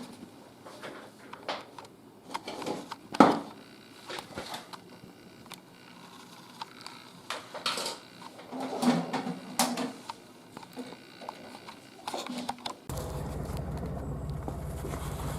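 Scattered knocks and rustles, the loudest a sharp knock about three seconds in. Near the end a boat's outboard motor starts a steady low running drone.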